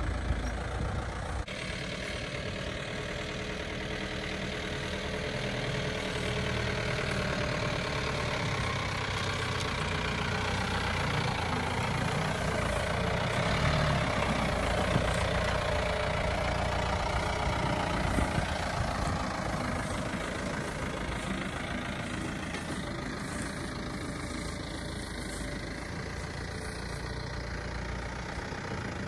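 Mahindra Bolero 4x4 pickup's engine running at low revs as the truck crawls over rough ground, getting louder about halfway through as it passes close by.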